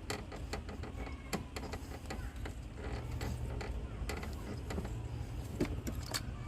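Irregular small plastic clicks and knocks of an ignition coil being handled and twisted into a spark-plug well by hand, over a steady low hum.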